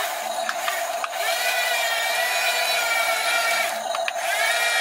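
Small electric motors and gearboxes of a toy RC excavator whining in two bursts as it drives and moves its boom. Each whine rises as the motor starts and drops away as it stops, over a steady hum.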